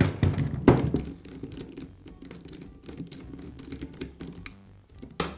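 Hand work on a Bostitch pneumatic nailer being taken apart: two sharp knocks of the tool and its parts against the workbench near the start, then a run of small clicks and rattles as a screwdriver works a screw on the magazine, and another sharp knock near the end.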